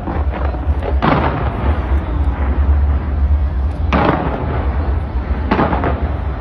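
Fireworks launched from the sides of the Taipei 101 skyscraper, crackling densely with three louder bangs: about a second in, near four seconds and about five and a half seconds in. A constant low rumble runs underneath.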